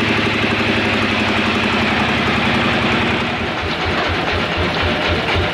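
Engine of sawmill machinery running steadily; a little past halfway its steady hum breaks into a pulsing low throb.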